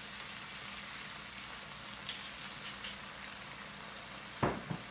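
Sofrito of bell peppers, chilies and onion sizzling steadily in a frying pan, just splashed with wine. A few sharp knocks near the end.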